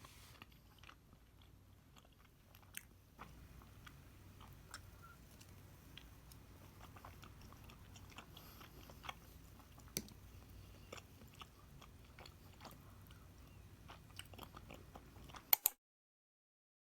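Faint chewing and biting of food, with scattered small clicks; a pair of louder clicks near the end, then the sound cuts off suddenly.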